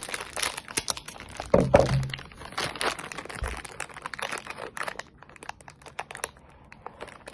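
Cellophane gift wrapping crinkling and crackling as it is handled and pulled open, with a short vocal sound about one and a half seconds in. The crinkling thins to a few sparse crackles after about five seconds.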